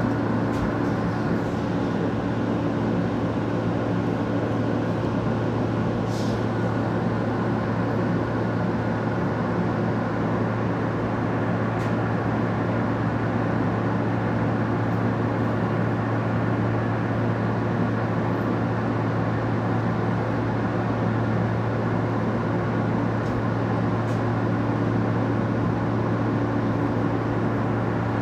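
Inside an R160 subway car running between stations: a steady rumble of wheels on rail with a constant low hum and a few steady tones, and two or three faint clicks.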